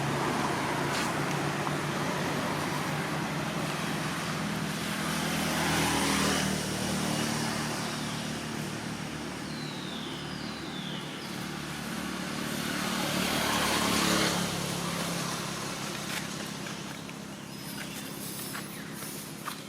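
Road traffic noise, with vehicles passing and swelling louder about six and fourteen seconds in. A few short falling chirps sound near the middle.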